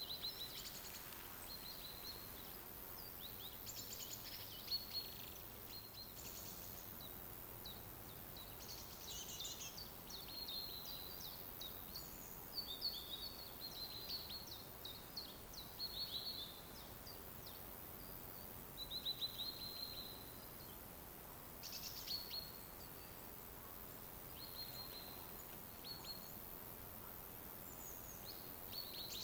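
Songbirds chirping and singing, with short high calls and quick trills coming every second or two over a faint steady background hiss.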